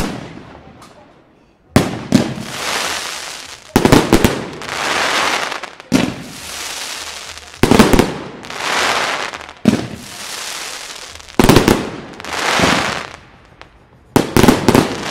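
Enigma 'Tears of Heaven' 259-shot fireworks cake firing a shot about every two seconds. Each is a sharp bang, sometimes a quick cluster of two or three, followed by about a second and a half of crackling hiss from the glittering burst.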